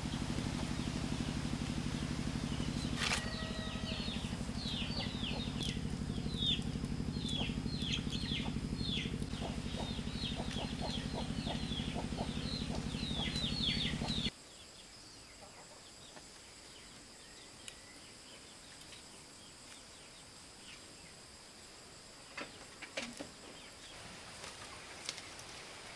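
Many short chirps, each falling in pitch, over a steady low drone with a fast even pulse. Both cut off abruptly about halfway through, leaving quiet outdoor background with a few faint clicks.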